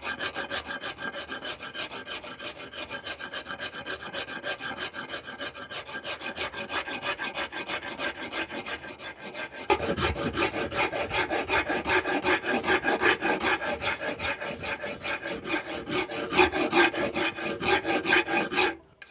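Wood rasp scraping across the grain of a hickory axe handle in a steady run of rapid, even strokes. The strokes get louder and heavier about ten seconds in.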